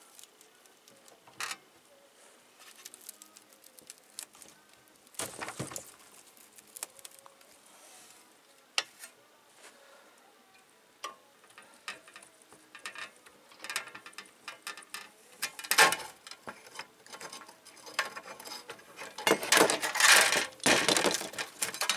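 Scattered clicks, knocks and scrapes of thin sheet metal and bar clamps being worked on a small sheet-metal bending brake. A busier stretch of metal clatter and scraping comes near the end as the clamps are loosened and taken off.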